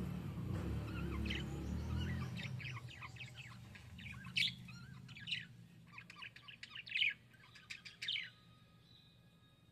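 Budgerigar chirping in a fast run of short calls, with the loudest notes about four to eight seconds in. A low rumble fades out over the first two or three seconds.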